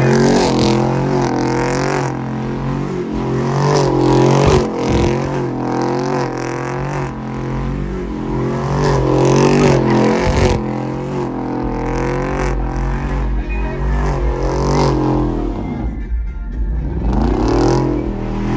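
Truck engine being revved over and over, the pitch rising and falling about once a second, then dropping low and climbing again near the end.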